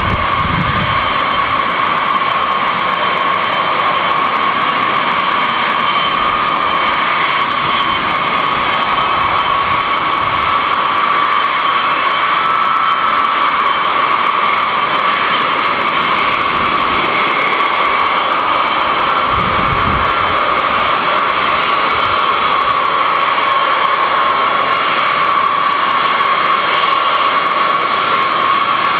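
B-52 Stratofortress bombers taxiing, their turbofan engines giving a steady high whine over a rushing noise, with a brief low rumble about two-thirds of the way through.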